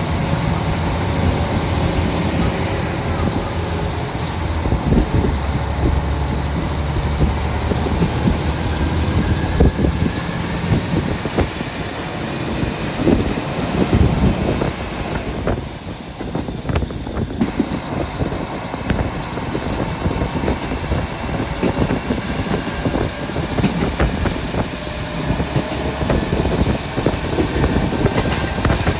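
Train running along the rails: a steady rumble of wheels on track with dense knocking, and a thin high wheel squeal for several seconds near the middle.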